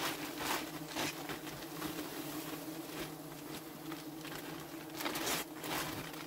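Steady hum of many wild honeybees flying around their comb, with sharp crinkles of a plastic bag being handled, the loudest just after five seconds.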